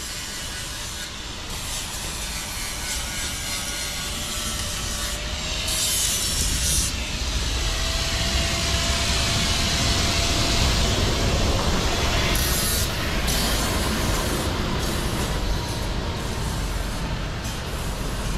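A vehicle passing close by in the street: a rumble and hiss that builds to its loudest about ten seconds in and then eases off, with a faint whine.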